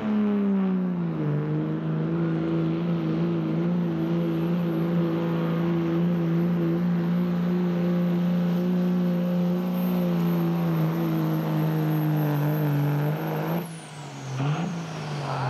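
Second-generation Dodge Ram's Cummins diesel at full throttle under heavy load pulling a sled: the engine note drops in the first second or so as it lugs down, then holds steady with a high turbo whistle over it. Near the end the throttle comes off and the engine and whistle fall away quickly.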